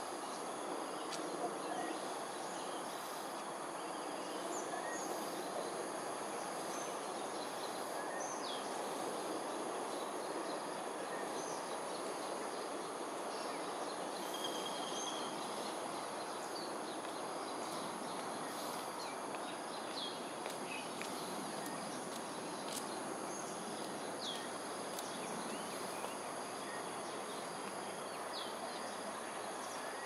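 Outdoor ambience: a steady high-pitched insect chorus over an even background hiss of distant noise, with short bird chirps here and there.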